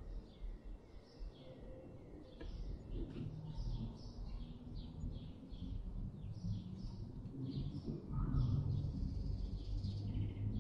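Small birds chirping over and over, a quick string of short high calls, over a low steady hum that builds up and grows louder in the second half.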